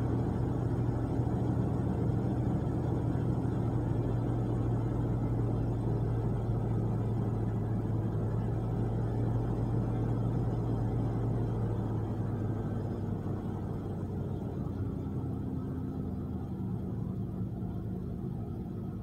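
A 1993 Ford Explorer's 4.0-litre OHV V6 idling steadily, heard from inside the cab. It is the fast warm-up idle after a cold start, settling lower: the hum eases off a little past the middle.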